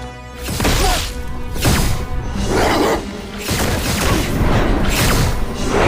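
Film action sound effects: a run of loud whooshes and crashing, shattering impacts, one after another, over dramatic background music.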